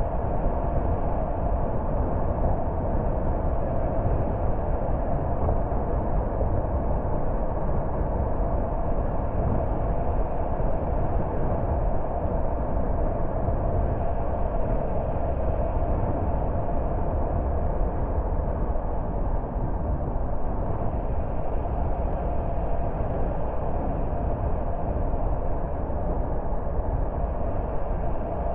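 Car driving along at steady speed: an even rumble of engine and tyre noise with no change in speed.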